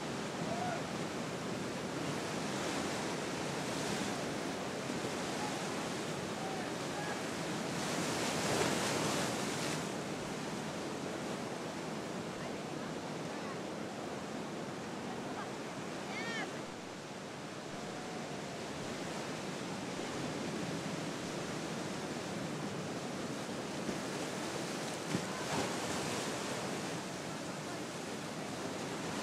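Ocean surf breaking and washing, a steady rushing noise with wind, swelling briefly about eight seconds in. A few faint high chirps come about halfway through.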